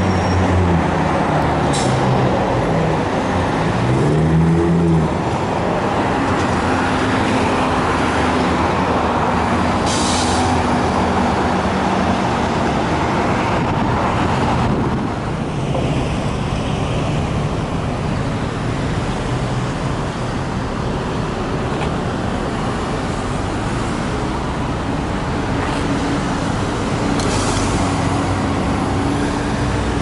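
New Flyer diesel-electric hybrid transit bus driving by in street traffic, its engine pitch rising as it pulls away, with a few short hisses of air.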